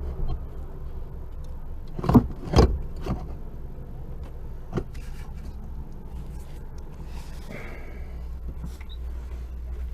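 Metal clunks and light rattling from fitting a clutch cable to a clutch pedal assembly under a car's dashboard: two sharp knocks about two seconds in, then a few lighter ones, over a steady low hum.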